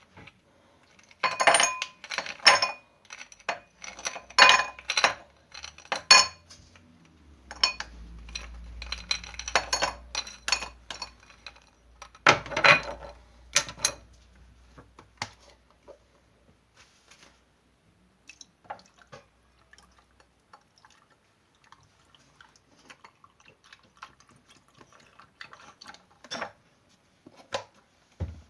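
Dishes and cutlery clattering and clinking in quick succession, with a faint low hum through the middle stretch, then only scattered light clicks and taps.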